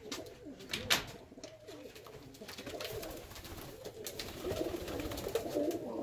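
Several Birmingham roller pigeons cooing, a wavering low murmur that builds and is loudest over the last couple of seconds. A few sharp clicks sound in the first second.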